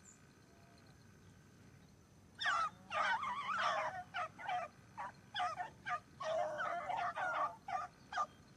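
Beagle pack baying as the hounds run a rabbit's scent. After about two quiet seconds a burst of overlapping bays starts, then runs on as a string of short, repeated bays.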